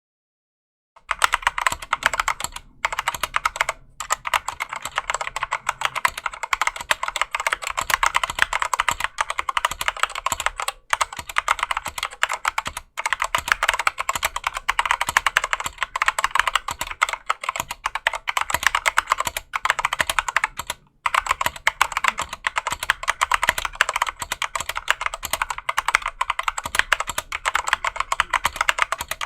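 Fast, continuous typing on a stock Drop CTRL mechanical keyboard with unlubed Gateron Clear linear switches. It starts about a second in and goes on with only brief pauses.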